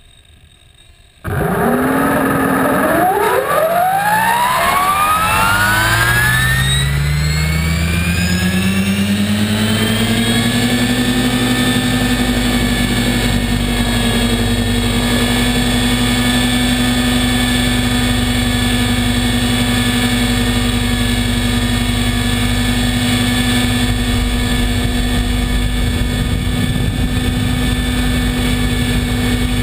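Compass 7HV electric RC helicopter's motor and rotor spooling up, heard from a camera on its landing skid: a whine that starts suddenly, rises steeply in pitch for several seconds, then holds steady at flying head speed.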